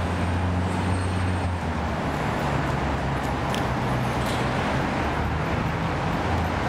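Steady city traffic noise: a constant rumble of road vehicles with a low engine hum that shifts in pitch as vehicles pass.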